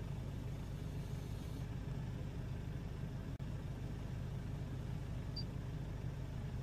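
Ford Ranger diesel engine idling steadily, heard from inside the cab, with the air conditioning switched on.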